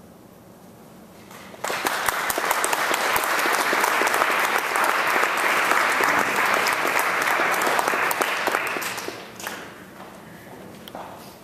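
Audience applauding: after a brief hush, clapping breaks out suddenly about a second and a half in, holds steady for several seconds and dies away about nine seconds in.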